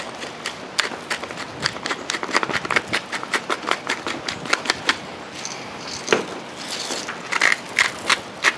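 Hand-twisted pepper mill grinding peppercorns: a rapid run of dry crunching clicks, with a short pause a little past the middle before the grinding resumes.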